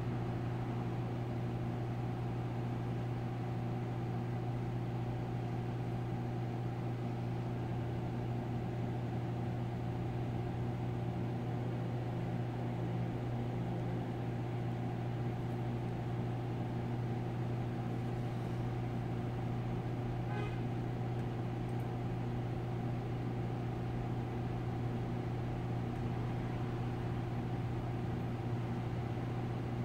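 Steady low hum that holds unchanged throughout, with a faint short tick about twenty seconds in.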